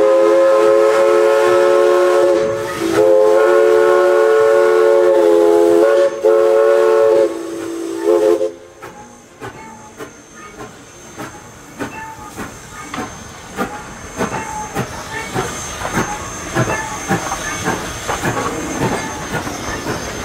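Steam locomotive chime whistle (East Broad Top 2-8-2 Mikado No. 16) blowing a chord in several blasts over the first eight seconds or so. After that the train rolls by with a string of clanks and clicks from its wheels and running gear, growing busier near the end.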